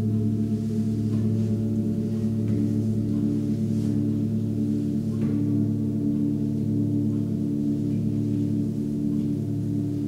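Several seven-metal Tibetan singing bowls ringing together in overlapping low sustained tones that pulse slowly as they beat against each other, with a few faint light strikes in the first half.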